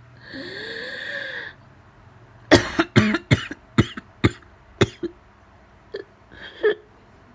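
A person's long wheezing breath in, with whistling tones, then a rapid run of about seven hard coughs and two weaker coughs near the end: an asthma flare-up brought on by a coughing fit.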